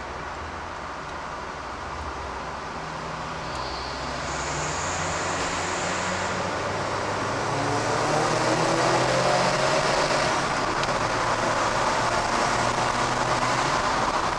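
Car engine and road noise heard from inside a car driving through a road tunnel. It grows louder over the first several seconds, and the engine note climbs steadily in pitch through the second half as the car accelerates.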